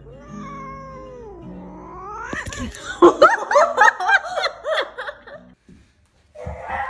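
Domestic cat yowling: one long, wavering, drawn-out yowl that slides down and then up in pitch, followed about three seconds in by a loud, fast run of short yowls, about five a second.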